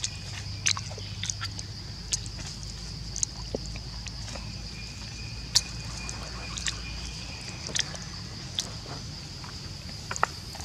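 Outdoor ambience dominated by a steady, high-pitched insect drone, with a low rumble underneath and a dozen or so short, sharp clicks scattered throughout.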